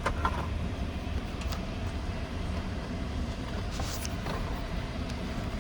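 Skoda Kodiaq SUV driving on an off-road course: a steady low rumble of engine and tyres, with a few light clicks and knocks.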